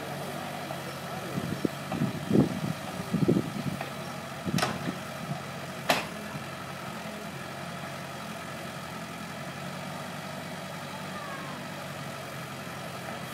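Hyundai wheeled excavator's diesel engine running steadily. Over it come a few louder bursts in the first few seconds and two sharp knocks, about four and a half and six seconds in.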